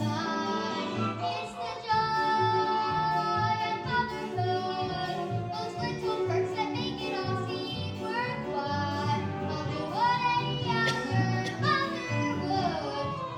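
Children singing a musical-theatre song over instrumental backing, with long held notes and a steadily pulsing bass line.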